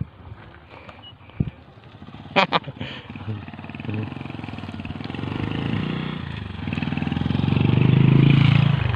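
A few short knocks about two and a half seconds in, then an engine running and growing steadily louder, loudest near the end.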